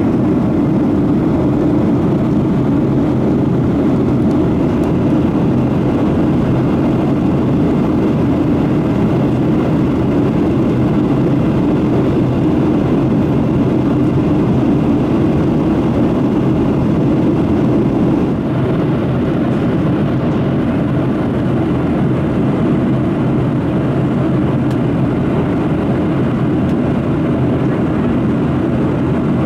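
Boeing 737-700 cabin noise during the climb: a steady, loud rush of CFM56 engine and airflow noise heard from a seat behind the wing. The sound eases slightly about two-thirds of the way through.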